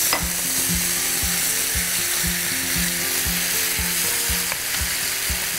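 Minced garlic sizzling steadily in a little hot oil in a frying pan while it is stirred with a wooden spoon.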